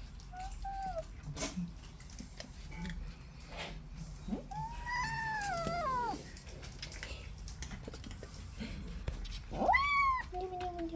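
Kitten meowing: a short meow, then a long drawn-out meow that rises and falls, and near the end a sharper rising meow followed by a lower one. Light clicks and taps come between the calls.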